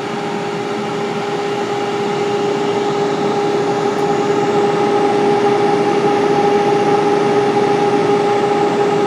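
Countertop air fryer running: its fan and heater give a steady hum with a whirring noise. The hum starts winding down in pitch right at the end as the fryer stops.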